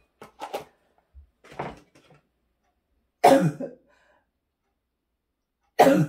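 A woman sneezing: one loud, sharp sneeze about three seconds in and another just before the end, after a few softer short sounds.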